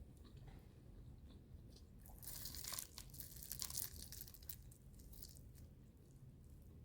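Close-up crunching and chewing of crispy fried food in the mouth. The loud crackly crunching runs from about two seconds in to about four and a half seconds, with quieter chewing on either side.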